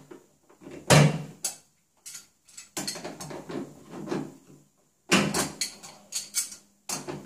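Sharp metallic clanks and knocks of a wrench working on an old faucet's stem: a loud one about a second in, and a quick run of them a little past halfway.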